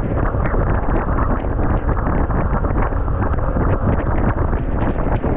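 Steady, loud wind buffeting the microphone of a motorbike riding along the road.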